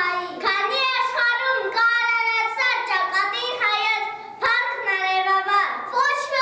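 A young child's high voice singing a song, one voice at a time, with some notes held.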